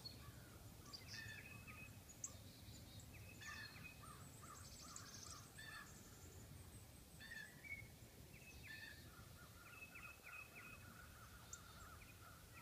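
Faint mixed birdsong: short chirps and calls from several birds scattered throughout, with a long even trill over the last few seconds.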